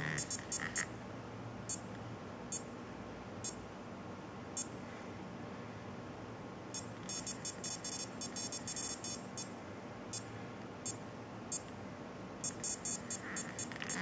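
Electronic feedback ticks from a capacitive touch keypad as a finger slides around its touch wheel and along its slider: scattered single ticks, then fast runs of ticks as the finger sweeps the slider, and a short steady beep near the end.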